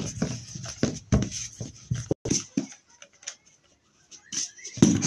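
Soft rubbing and light tapping of hands rolling a small lump of sugar paste on a hard tabletop, falling almost silent after about three seconds, then a louder knock near the end.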